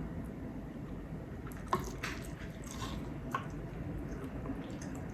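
Close-miked eating: wet chewing and mouth sounds, with a few sharp clicks, the clearest about 1.7 and 3.3 seconds in.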